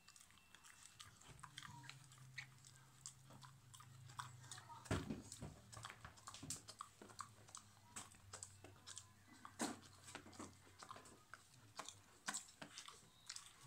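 A dog gnawing and crunching on a chew, with irregular sharp crunches and clicks, the loudest about five seconds in.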